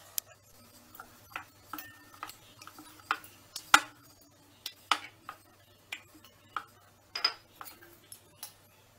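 Scattered light clicks and knocks at irregular intervals, the loudest a little under four seconds in, from a rolling pin, a flat blade and a steel bowl against a wooden board as a ball of flour dough is pinched off and rolled flat.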